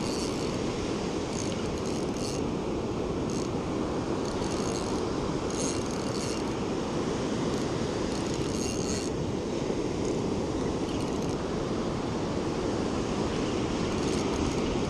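Steady rush of breaking surf, an even noise that holds at one level throughout, with short faint higher hissing patches now and then.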